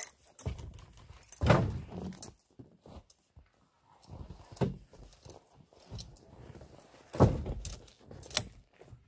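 Birch firewood logs knocking and clattering against one another as they are set onto a stacked load. The two loudest knocks come about a second and a half in and about seven seconds in, with lighter clacks between them.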